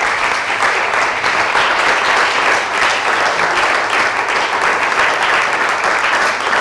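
Audience applauding steadily in a lecture hall.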